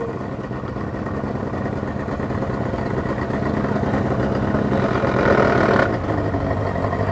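Outboard boat motors idling, a steady hum that slowly grows louder, swells for about a second and a half near the middle, then drops back just before six seconds in.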